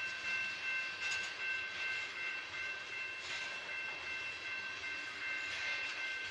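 Freight train of loaded covered hopper cars rolling past, the noise of steel wheels on the rail with a high, steady squeal over it.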